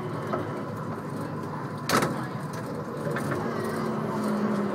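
Changi Airport Skytrain people mover running, heard from inside the car: a steady rumble along the guideway with one sharp knock about two seconds in. A steady low hum comes in after about three and a half seconds as the train pulls into the station.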